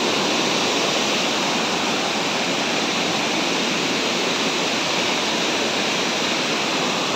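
Rushing water of a waterfall cascade: a loud, even, steady rush that does not change.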